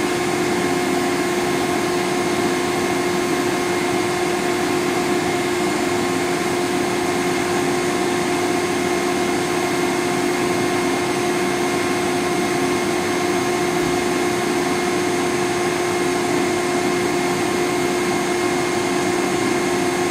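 Servo motor on a Siemens Simodrive 611U drive being test-run at about 2,670 rpm under speed control. A steady whir with a constant whine that does not change.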